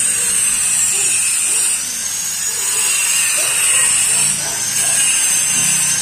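Electric angle grinder working steel: a loud, high-pitched whine over a grinding hiss. The whine sags and recovers in pitch a couple of times, and the hiss eases briefly about two seconds and again about four and a half seconds in.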